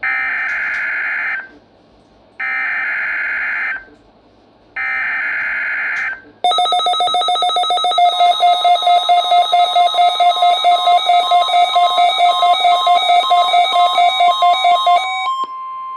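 NOAA Weather Radio weekly test: three short buzzy bursts of SAME digital header data, each about a second and a half long with a second's gap between them. Then a loud, fast-pulsing electronic alarm over the steady warning alarm tone; the pulsing stops near the end and the steady tone carries on alone.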